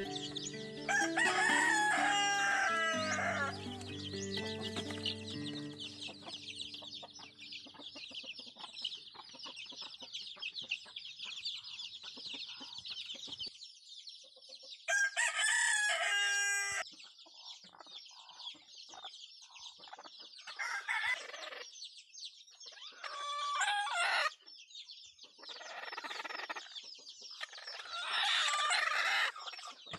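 Chicks peeping without a break, while a rooster crows loudly about a second in and again midway, with more chicken calls and clucking near the end. Soft background music fades out in the first few seconds.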